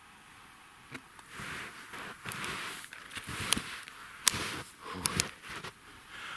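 Skis sliding and crunching over snow in a series of uneven strides, with several sharp clicks among them.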